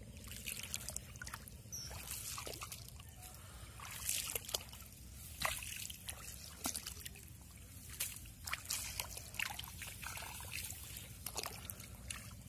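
Shallow paddy water trickling and sloshing, broken by many short, sharp splashes and clicks as a fine current net is lifted out of the flooded field.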